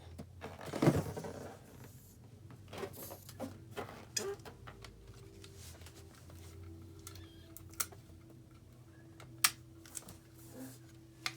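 Craft materials being handled at a table: rustling with scattered sharp clicks and taps, and one louder rustle about a second in.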